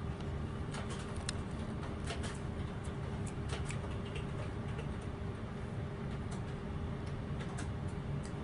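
Steady low room hum with a faint steady tone, and scattered light clicks and ticks, most of them in the first half and a few near the end.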